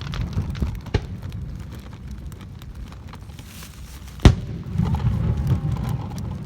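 Fireworks bursting: a sharp bang about a second in and a much louder one just past four seconds, over a low rumble.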